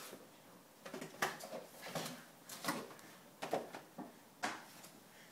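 A toddler handling toys on a hardwood floor: about half a dozen light, scattered knocks and rustles.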